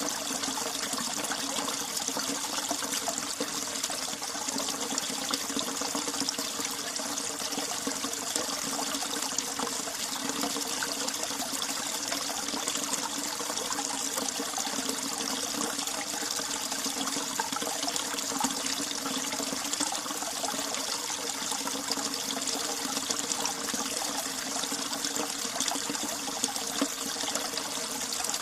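Mountain valley stream, water flowing steadily with a continuous rushing and trickling.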